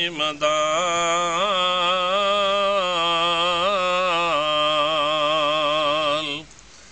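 A man singing an Urdu devotional salaam (naat) unaccompanied. He holds one long, ornamented, wavering note for about six seconds, then breaks off near the end.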